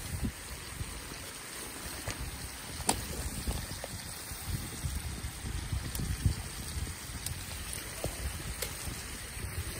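Steady rush of flowing river water, with a few sharp cracks and pops from a wood fire burning in a brazier.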